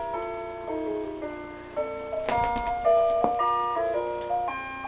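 Carousel music box playing its melody, one clear note after another, with two short knocks about halfway through.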